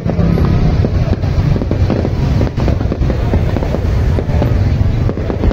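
Fireworks going off: many rapid bangs and crackles over a dense low rumble.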